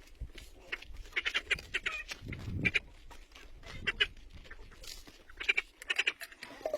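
Farm animals calling, several short calls in a row, with scattered clicks and knocks.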